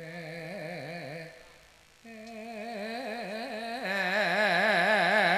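A solo voice singing long held notes in Madurese gending style with a wide, heavy vibrato: a short phrase, a brief pause, then a longer phrase that grows louder in its second half.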